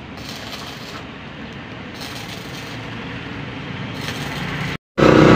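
Steady outdoor street background noise, a low hum of distant traffic with no distinct tool or door sounds, cutting off abruptly near the end.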